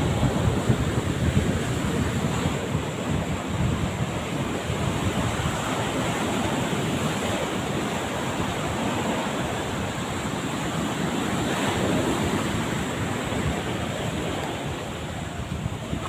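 Strong sea surf breaking and washing up a sandy beach in a steady rush, with wind buffeting the microphone in low gusts.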